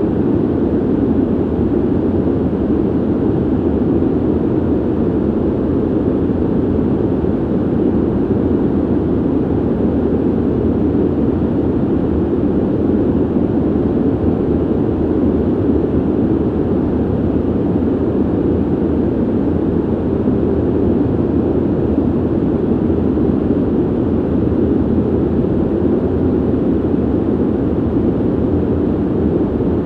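Steady ventilation noise: a deep, even rush of air that does not change, with no rhythm or other sounds in it.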